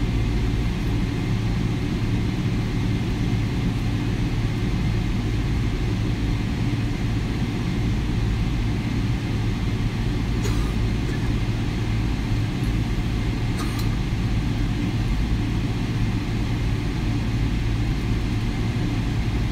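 Steady low rumble and hum inside a Boeing 787 Dreamliner cabin with the engines running during taxi, with a couple of faint clicks partway through.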